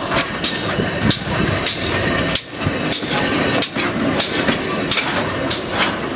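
BR (W) 0-6-0 pannier tank locomotive 1638 passing slowly at close range, with a regular beat of sharp strokes about twice a second over a steady mechanical running sound.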